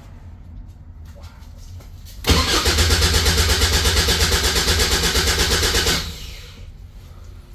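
Caterham 7 620S engine turned over on the starter motor, starting about two seconds in: rapid, even cranking pulses for about three and a half seconds, then it stops without catching. This is a cold no-start.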